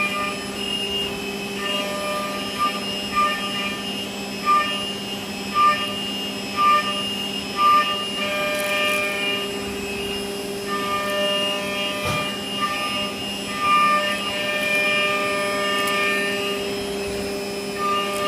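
Haas EC-400 horizontal machining center cutting metal: a steady machine whine and hum, with a higher cutting tone that swells and fades again and again, roughly once a second.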